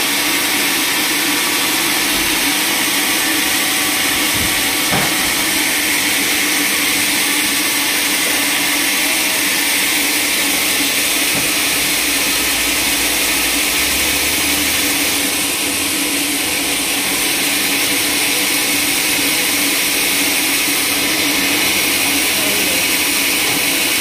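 Band sawmill machinery running steadily, a loud even motor hum and whir with the blade not cutting.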